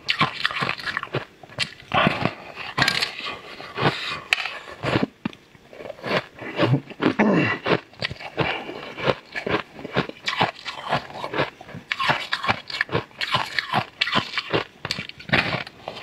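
Repeated crisp crunching as hard purple crystal candy is bitten off a slab and chewed, many sharp cracking bites in quick succession.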